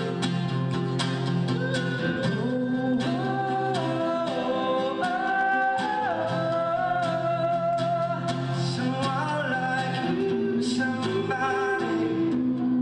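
A live song: a solo voice singing long held notes that slide from pitch to pitch into a microphone, over strummed acoustic guitar.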